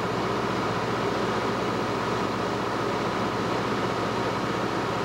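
Cessna 150L's Continental O-200 four-cylinder engine and propeller running steadily, heard inside the cabin over a rush of air.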